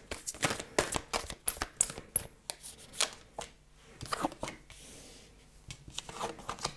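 A deck of oracle cards being shuffled by hand: a quick run of papery clicks and riffles for the first few seconds, then slower, softer card handling as a card is drawn and laid on the table.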